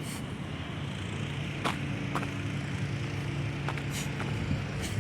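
An engine running steadily with a low, even hum, with a few light clicks and knocks over it.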